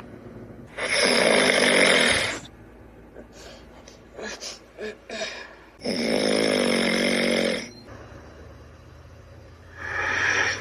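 Loud snoring given to a dragon: long, drawn snores about four to five seconds apart, with short, quieter sounds between them.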